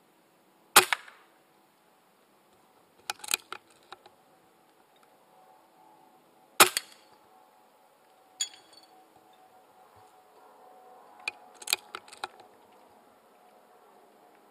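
Air rifle shots: two sharp cracks about six seconds apart, with quieter clicks and knocks between them and a brief metallic ping about eight seconds in.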